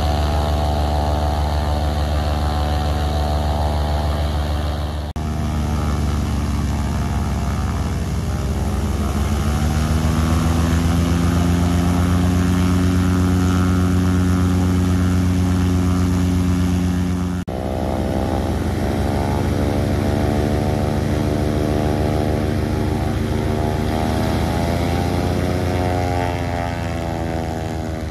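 Antonov An-2's nine-cylinder radial engine running with its propeller turning, loud and steady. Its pitch climbs about eight to ten seconds in and then holds. There are two abrupt breaks, about five and seventeen seconds in.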